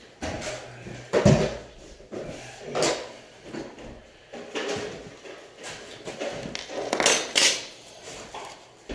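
A series of knocks and clatters of hard objects being handled and set down, about six over the stretch, with the loudest about a second in.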